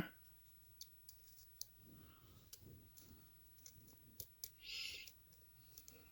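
Faint, scattered clicks and ticks of a lock pick working the pins of a Yale pin-tumbler lock fitted with security pins, with a short soft hiss about two-thirds of the way through.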